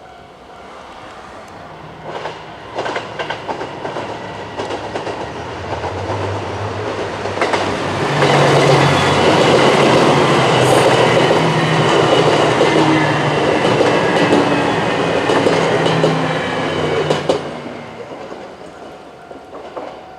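KiHa 189 series diesel limited-express train passing close by a level crossing: the diesel engines run and the wheels clack over the rail joints. It builds from about two seconds in, is loudest in the middle, and fades away near the end.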